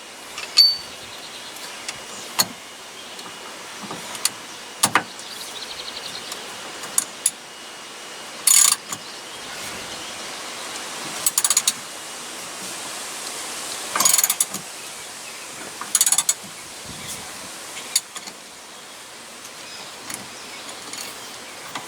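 Ratchet clicking in several short bursts, among scattered sharp clicks and knocks of metal tools, as the 5/8 center bolt of a steering wheel puller is cranked down to force a factory steering wheel off its splined shaft.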